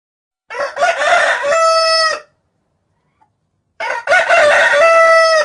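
A barred (carijó) rooster crowing twice, each crow a broken, stuttering start ending in a long held note; the second begins about a second and a half after the first ends.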